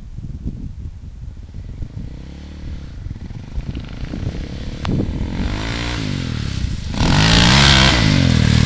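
Polaris Outlaw sport quad's single-cylinder engine revving up and down as it rides over grass, faint at first and growing louder as it approaches. About seven seconds in it gets suddenly much louder and noisier as the quad comes close.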